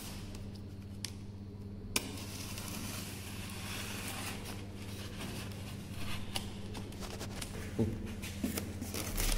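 Fingers picking and scratching at packing tape on a polystyrene foam box, with a few sharp clicks and faint rasping handling noise, over a steady low hum.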